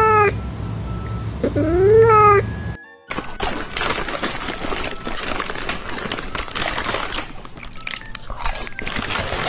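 Two cat meows: one falling at the start, then one rising and falling about two seconds in. After a brief cut comes several seconds of loud, crackly, rapid munching, a cat chewing its food.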